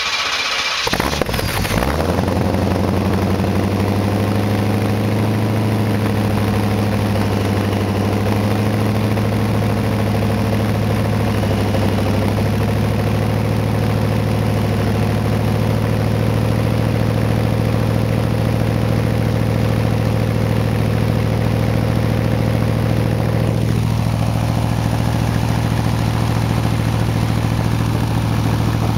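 A 1984 Corvette's 5.7-litre Cross-Fire Injection V8 with straight-pipe exhaust, just started. It settles within the first two seconds and then idles steadily and loudly at the tailpipes.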